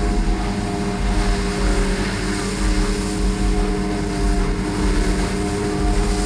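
New Holland FR500 self-propelled forage harvester chopping grass at full working speed: a loud, steady engine and cutterhead drone with a few constant tones in it, mixed with the engine of the tractor running alongside with the silage trailer.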